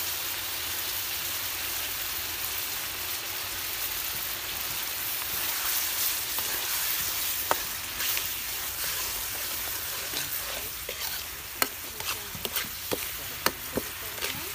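Shallots, lemongrass and chilies sizzling in coconut milk in a steel wok as a metal ladle stirs them. Sharp clinks of the ladle against the wok come about halfway and several more near the end.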